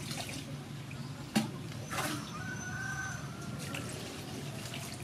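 Water poured from a plastic bowl into a stainless steel bowl of noodles, splashing and trickling, with one sharp knock about a second and a half in.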